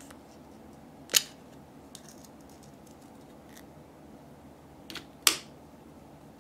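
Snap-on lid of a small plastic slime barrel being pried off with a sharp plastic click about a second in, then a second sharp plastic click near the end, with fainter taps and handling between.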